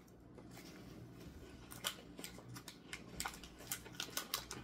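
Soft, sharp crackling and clicking from a snack wrapper being handled. The crackles start about two seconds in and grow more frequent toward the end.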